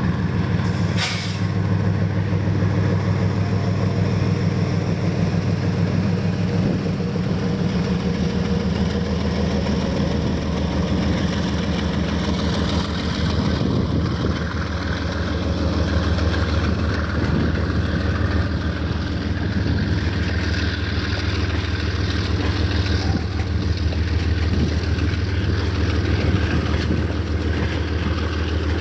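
Diesel locomotive engine running steadily under a freight train of loaded hopper wagons rolling past, with a short hiss of air about a second in.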